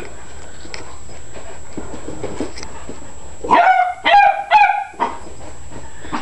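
Beagle barking three times in quick succession a little past halfway, short high yelping barks that drop slightly in pitch.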